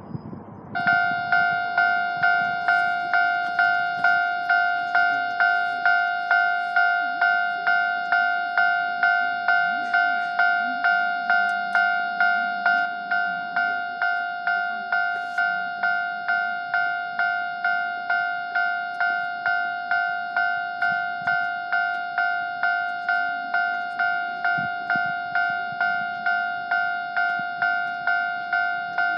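Japanese level crossing's electronic warning bell starting up about a second in and then dinging steadily, a little under two dings a second: the crossing alarm that signals an approaching train.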